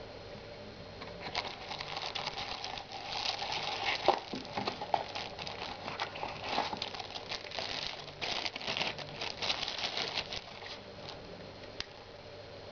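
Clear plastic bag around a computer mouse crinkling as it is handled and pulled off, a dense run of crackles that starts about a second in and dies away near the end. One sharper knock stands out about four seconds in.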